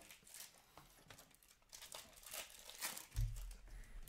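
Hockey card pack wrappers crinkling and tearing as packs are opened and cards shuffled by hand, in a string of short rustles. About three seconds in, a low thump from a hand handling cards close to the microphone.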